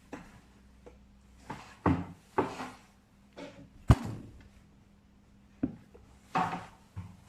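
A series of irregular knocks and clunks, like objects being handled and set down, with one sharp knock about four seconds in as the loudest.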